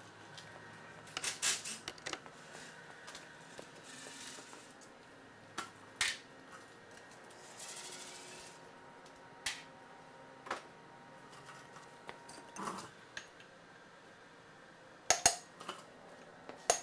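Scattered metallic clicks and clinks of tools on the bare OM617 diesel block as the number three connecting rod cap is unbolted, with two short whirring runs of a cordless ratchet. Near the end come sharp hammer taps on a brass drift to knock the piston and rod out.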